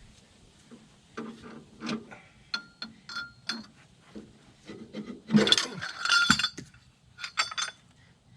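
Metal hand tools clinking and clanking on an overtightened fitting on a Kobelco SK250 excavator as it is wrenched loose. There are scattered knocks and a few short ringing clinks, then the loudest clatter of metal on metal about five and a half to six and a half seconds in, and two more clinks near the end.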